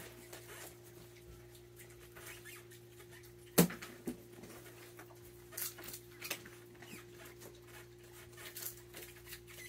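Sporadic light clicks and rattles of peanuts in the shell, with one sharp knock about three and a half seconds in, over a steady low hum.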